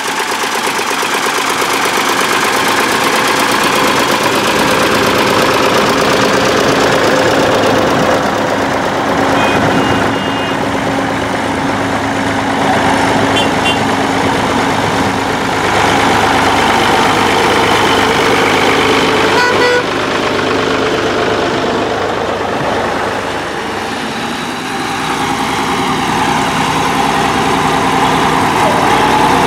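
Vintage tractor engines running steadily as tractors drive past one after another: a small blue Ford tractor, then a large equal-wheeled four-wheel-drive tractor.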